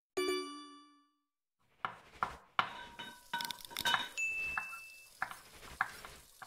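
Sound effects for an end-card animation: a bright bell-like ding that rings out and fades over about a second. Then comes a quick run of clinks and clatters like dishes and cutlery, with a short high steady tone about four seconds in.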